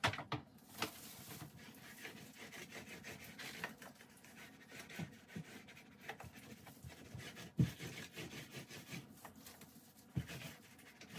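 Paint being spread onto wood: faint, irregular rubbing strokes of the applicator, with a few soft knocks, the sharpest about two-thirds of the way through.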